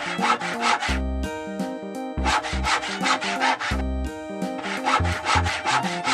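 Sawing sound effect of quick back-and-forth saw strokes, coming in several short bursts, over background music.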